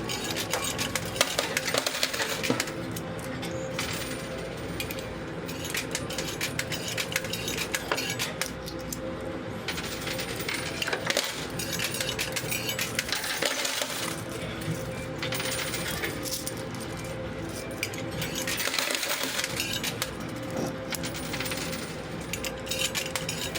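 Quarters clinking and dropping in a coin pusher arcade machine, a dense run of many small metallic clicks as coins are fed in, pushed and fall off the shelf.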